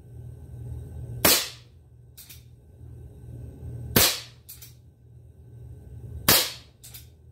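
A Hahn 45 CO2-powered BB single-action revolver firing three loud, sharp shots about two and a half seconds apart. A fainter click follows each shot, and a low hum runs underneath.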